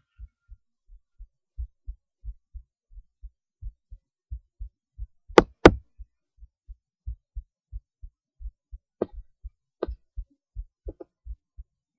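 Human heartbeat heard through a cheap acoustic stethoscope: a steady run of paired low thumps, the lub-dub of each beat. About five and a half seconds in come two loud sharp knocks, with a few fainter clicks later.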